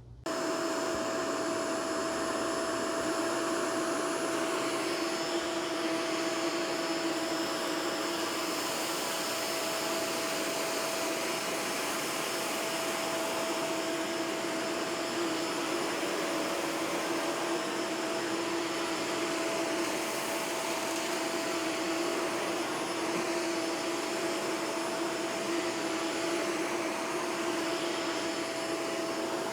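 Shark Vertex powered lift-away upright vacuum (AZ2002) running on carpet, starting abruptly and then running at a steady pitch, with a constant motor whine over the rush of air.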